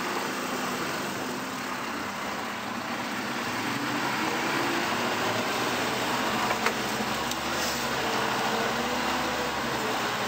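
Mercedes-Benz Unimog U4000's four-cylinder turbodiesel running steadily under load, heard from inside the cab as the truck climbs a 100% off-road gradient. A couple of sharp knocks come about two-thirds of the way through.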